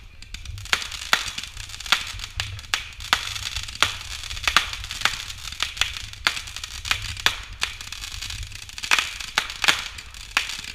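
Consumer fireworks firing: an irregular string of sharp pops and bangs, a few a second, over a steady crackling hiss.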